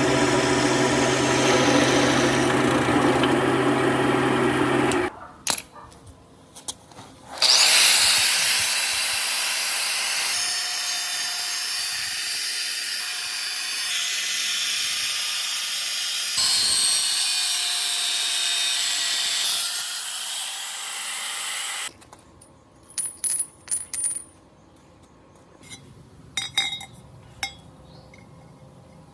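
An engine runs steadily for about five seconds and cuts off suddenly. After a few clicks, a power tool runs loudly for about fourteen seconds, then stops. Scattered sharp clicks and knocks follow near the end.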